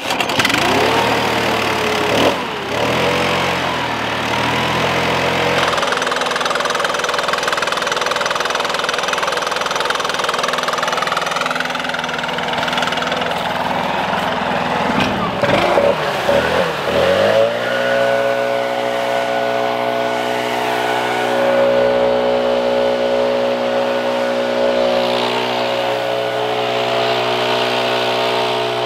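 Gas-powered leaf blower's small engine running at speed, its pitch dipping and climbing back about two seconds in and again about halfway through, then holding steady.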